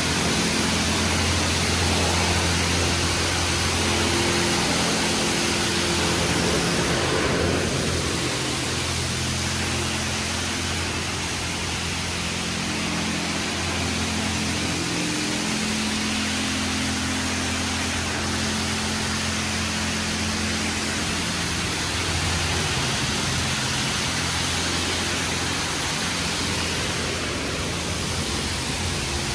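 High-pressure water jets from a PDQ LaserWash 4000 touchless car wash's spray arm hissing steadily against a car as the arm travels around it, with a steady low hum underneath. The spray gets slightly quieter about seven seconds in.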